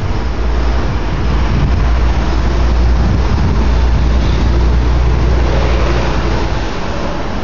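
Rolling thunder from a storm: a long low rumble that builds over the first few seconds and dies away near the end, over a steady hiss.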